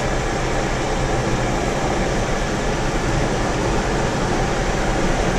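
Steady rumble and hiss of a car driving along a road, heard from inside the cabin.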